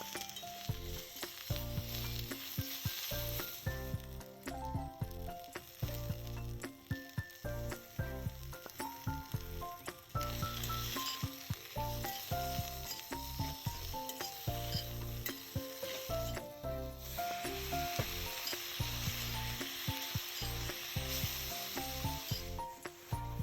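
Food sizzling as it fries in a pan, the hiss swelling louder partway through, under background music with a melody and bass line.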